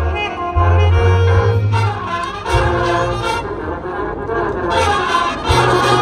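Marching band brass playing held chords over deep bass notes, the bass stepping to a new note every second or so.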